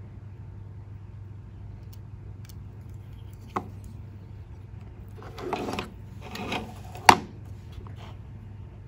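Handling noise from a small plastic relay module and its wires: a few light clicks and two short rustles, with one sharp click a little after seven seconds in that is the loudest sound. A steady low hum lies under it all.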